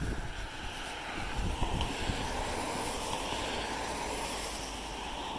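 Road traffic on a multi-lane street: a steady rush of passing cars' tyres and engines that builds from about two seconds in. A few low thumps come in the first two seconds.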